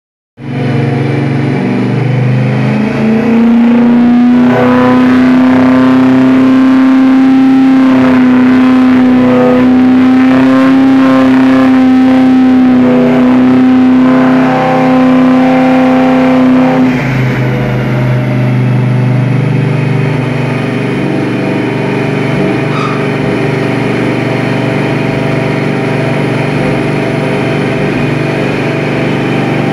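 Classic Ford Mustang coupe's engine and dual exhaust running on a chassis dynamometer, with the rear wheels driving the rollers. The engine revs up over the first few seconds and holds a steady high speed. About seventeen seconds in it drops back to a lower, steady speed.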